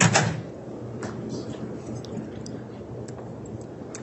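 Courtroom room tone during a recess: a steady low hum with scattered small clicks and rustles. A loud thump comes right at the start.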